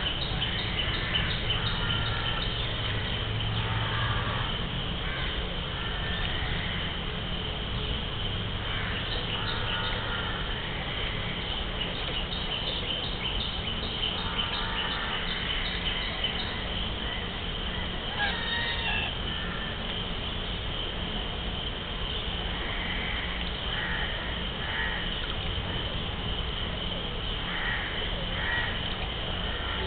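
Birds calling now and then in short bunches of calls, over a steady high-pitched buzz that ticks rapidly at times and a constant low rumble.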